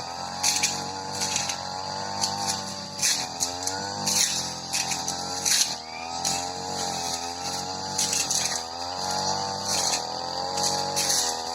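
Supra SPR328 two-stroke brush cutter running at high speed, its pitch dipping and recovering again and again as the blade loads up in tall, dense grass, with repeated short hits of stems against the blade.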